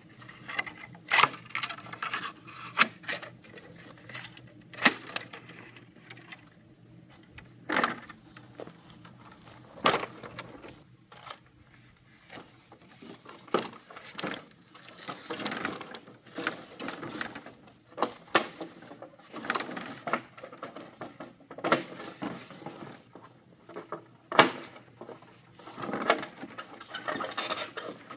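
Green bamboo being worked by hand: irregular sharp cracks, knocks and scrapes as a blade splits it into strips, then knocks and rustling as long bamboo poles are lifted and moved.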